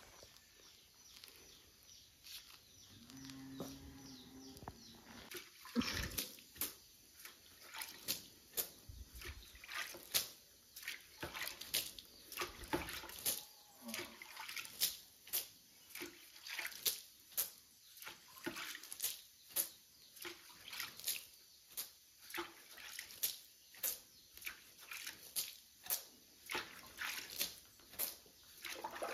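Trowel working wet cement mortar: short scraping, slapping strokes repeating about twice a second from about six seconds in.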